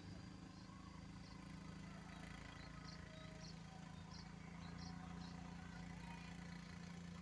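Faint, steady low engine hum, with a run of short high chirps over it.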